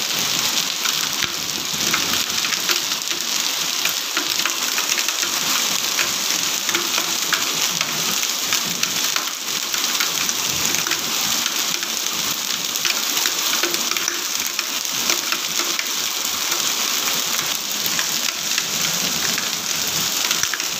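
Hail and heavy rain pelting wet concrete paving: a dense, steady hiss with many sharp clicks of hailstones striking.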